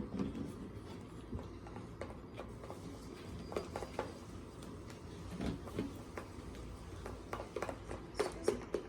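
Fluffy slime of glue and shaving cream being stirred in a bowl as activator is worked in: irregular soft clicks, taps and squelches, several in quick succession near the end.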